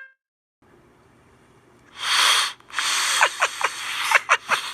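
After near silence, a loud half-second burst of hissing noise about two seconds in, then a longer hiss, about a second and a half, crossed by five or six quick falling squeaky glides.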